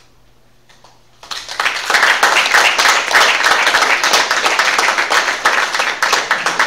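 Audience applauding. The clapping breaks out about a second in, rises quickly to a dense, steady applause and keeps going.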